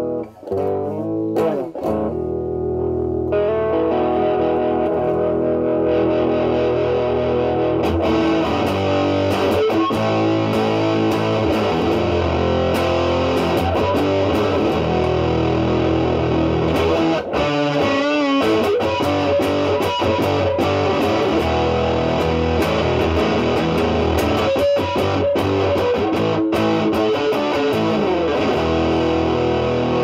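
Stratocaster played through a 1986 Pro Co Rat2 distortion pedal with its LM308N chip, into a Marshall Valvestate amp's clean channel. The guitar's volume is rolled back so the pedal, set at maximum distortion, cleans up, giving a tone the player finds muddy. After a few broken-up notes at the start, it plays steadily and grows brighter over the first several seconds.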